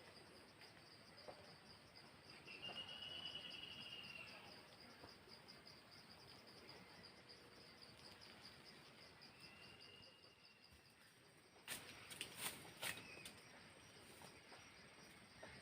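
Faint forest ambience: insects chirring steadily in a fast, high pulse, with two drawn-out high calls and a few sharp clicks or snaps near the end.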